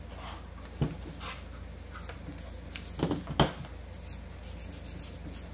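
A few light knocks and clicks of a small metal engine part being handled on a workbench, over a steady low hum.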